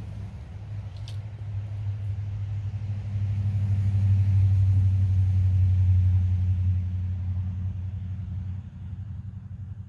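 Low engine rumble of a passing motor vehicle, building to its loudest around the middle and then fading away.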